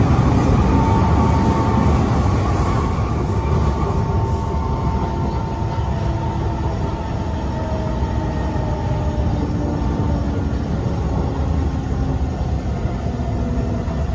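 Kawasaki C151 metro train heard from inside the car while running: a steady rumble of wheels on the track, with thin electric motor whines that fall slowly in pitch as the train slows.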